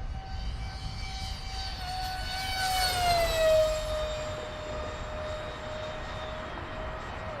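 Electric ducted fan of a FreeWing SU-35 RC jet whining as it flies past. The whine grows louder, then drops in pitch about three seconds in as the jet goes by, and carries on steadily at the lower pitch.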